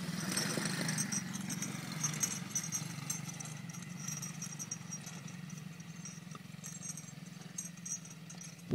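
Small children's ATV engine running steadily as the quad drives away, slowly growing fainter.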